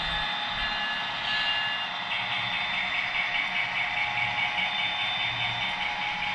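HO scale model diesel locomotive's DCC sound decoder playing a diesel engine running, through the model's small onboard speaker, as the train moves along the track. The sound holds steady, with a rhythmic pulsing that sets in about two seconds in.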